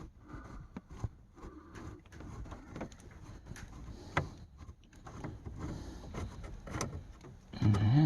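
Scattered light clicks and rattles of a screwdriver and small screws and parts being handled while a screw is worked loose and refitted, with a short grunt-like voice sound near the end.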